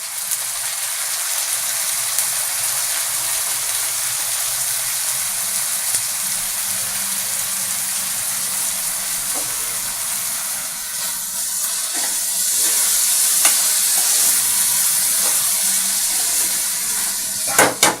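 Mixed vegetables and paneer frying in oil in a pan, a steady sizzling hiss, with a few light knocks, two close together near the end.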